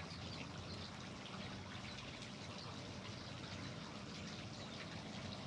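Steady trickling, like running water, with faint soft ticks over it.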